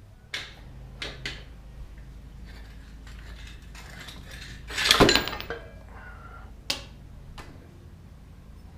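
Metal tools and motorcycle wheel parts clanking and knocking during front-wheel removal: a few sharp knocks, with one louder clatter about five seconds in.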